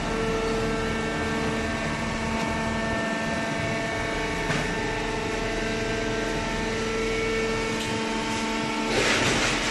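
Hydraulic paper baler running with a steady motor and pump hum made of several constant tones, with a small click about halfway and a short burst of hiss near the end.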